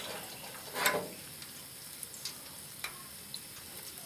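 Hot oil in a deep fryer sizzling with small scattered crackles, with one louder knock-and-scrape about a second in.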